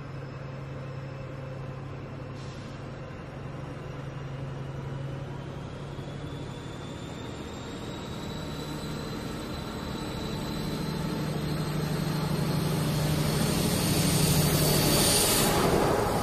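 HST (InterCity 125) power car engine sound pulling away, a steady low engine drone with a high whine that rises slowly in pitch as it accelerates. It grows louder as the train approaches, is loudest about two-thirds of the way through, and drops off near the end as the power car passes.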